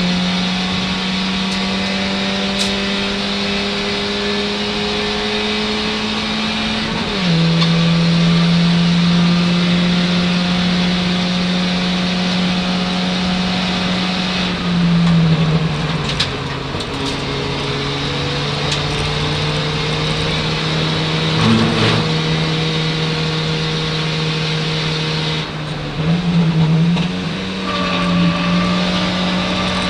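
Ford Fiesta Zetec race car's engine heard from inside the cabin, running hard under load on track. Its pitch drops about seven seconds in and again about fifteen seconds in, then climbs back up near the end.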